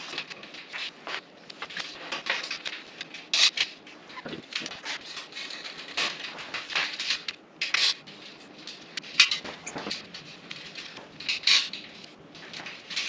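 Irregular metallic clinks and rattles as steel drawer slides are handled and bolted onto a steel workbench frame, with bolts, washers and nuts being fitted by hand.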